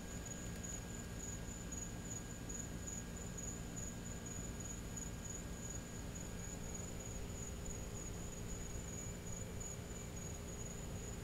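A cricket trilling steadily on one high, unbroken note, over a faint low hum.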